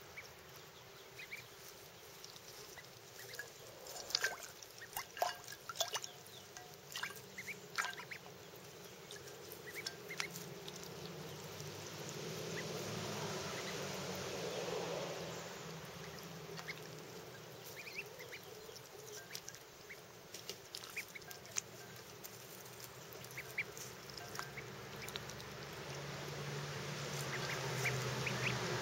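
Runner ducklings peeping in many short calls, with small splashes from the shallow water bowl one of them is bathing in. A soft swell of splashing or rustling comes around the middle.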